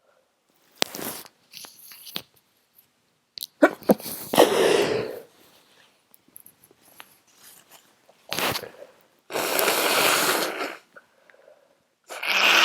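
Person with a congested head cold sneezing several times, a few seconds apart, with sharp breathy blasts; the last two are long and loud.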